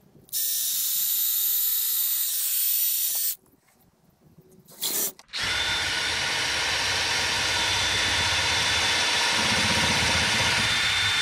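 Cordless drill boring a hole into a wooden leg: a steady whine for about three seconds, a stop, a brief blip, then a longer run of about seven seconds.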